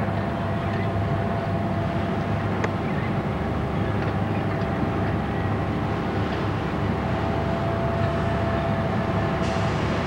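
Steady machinery drone on a menhaden purse-seine boat: a constant low hum with a thin, steady whine over it, and a couple of faint clicks.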